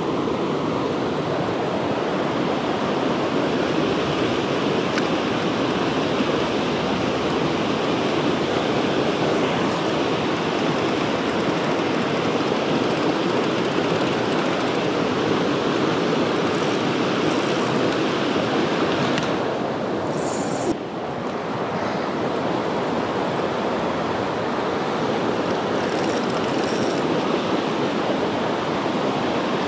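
Creek water rushing steadily over rapids close by, an even, unbroken wash of white-water noise that briefly dips about two-thirds of the way through.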